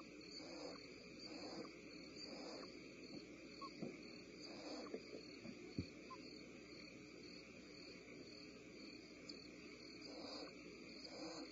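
Faint steady chirring of crickets, with soft hissing rasps now and then from barn owl nestlings, and a single light click about six seconds in.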